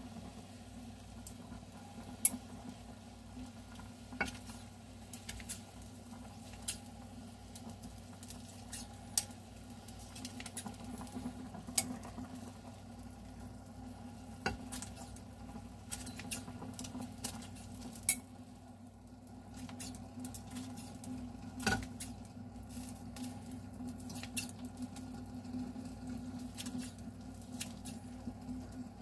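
Ramen broth bubbling steadily at the boil in a glass saucepan, with scattered sharp clicks as metal tongs and kitchen scissors knock against the pot while dumplings are cut up in it.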